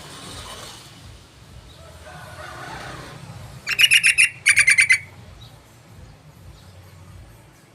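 Yellow-vented bulbul (trucukan) calling: two short bursts of rapid repeated notes just before the middle, each about half a second long.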